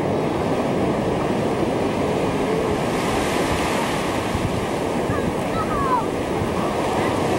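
Ocean surf washing steadily onto the shore, with wind rushing on the microphone.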